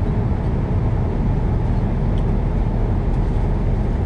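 Steady airliner cabin noise in flight: an even low rumble of engines and airflow.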